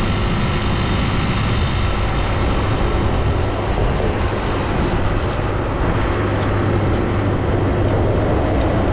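Small scooter running flat out at its top speed of about 30 miles an hour, a steady engine hum under heavy wind and road noise on the microphone.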